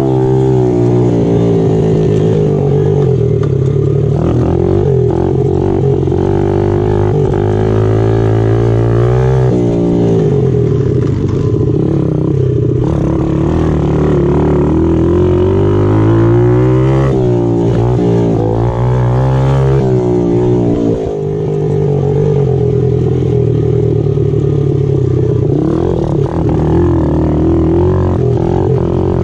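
A pit bike's small single-cylinder engine running under load on a dirt trail, its pitch climbing and falling again and again as the throttle is worked and the gears change, with a brief drop in revs about two-thirds of the way through.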